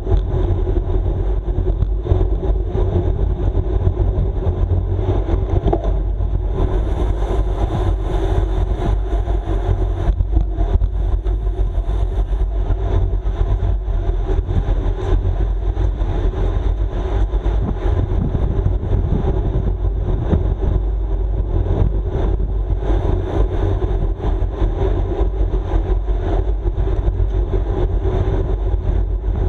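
Steady wind rush buffeting the microphone, mixed with tyre and drivetrain noise from a road bike ridden at race speed.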